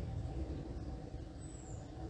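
Steady low rumble of an airplane flying overhead, with faint constant engine tones in it. About one and a half seconds in, a bird gives a single thin, very high note that falls in pitch.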